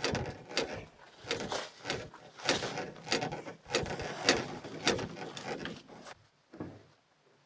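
Footsteps through forest undergrowth with creaks and knocks from a canoe carried overhead on a portage, a step roughly every half second. The walking stops about six seconds in.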